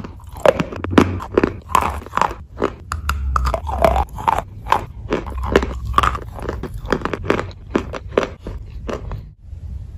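Wet chalk coated in chalk paste being bitten and chewed close to the microphone: a fast, irregular run of crunches that stops shortly before the end.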